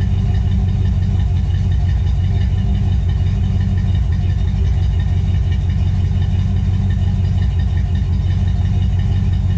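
1964 Pontiac GTO's 389 V8 idling steadily with a deep, even rumble as it warms up after a cold start.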